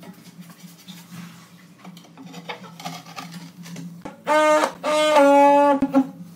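Handheld suction-cup tile vibrator buzzing in short bursts as it is pressed onto a large porcelain slab bedded in tile mortar, setting the slab. Before the buzzing starts, about two-thirds in, there are only faint taps and handling sounds.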